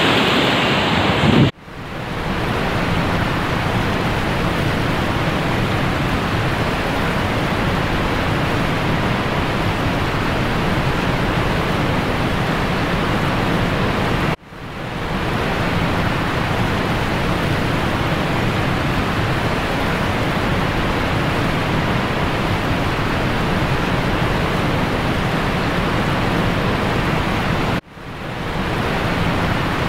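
Flood water roars through the barrage gates for about the first second and a half. After that comes a steady, pitchless rushing noise that cuts out twice and fades back in each time.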